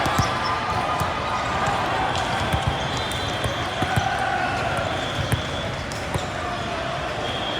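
Busy gymnasium during volleyball play: irregular ball thuds and sharp impacts, with high sneaker squeaks over background crowd chatter.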